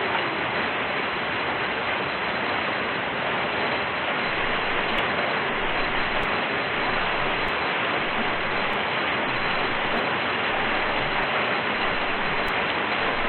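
Steady rain falling in open country, an even hiss of many drops with no let-up.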